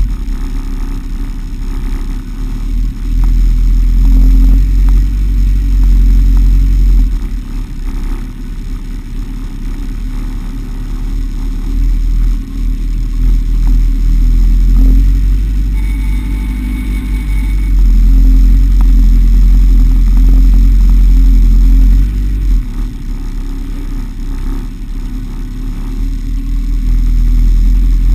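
A Legend car's Yamaha inline-four motorcycle engine running while the car sits stationary, heard from inside the cockpit as a heavy low rumble that swells and eases every few seconds.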